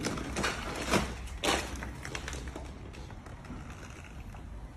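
Hand trigger spray bottle squirting a fine mist of slip solution onto paint protection film: four quick hissing squirts in the first two seconds, then only faint handling noise over a low hum.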